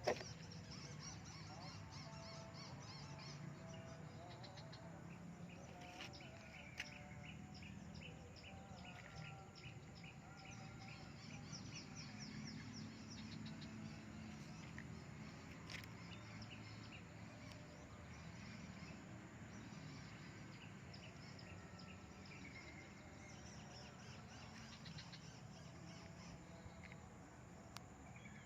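Faint outdoor ambience with animal calls: trains of short, rapid, repeated chirps and a few faint honk-like calls over a low steady background hum.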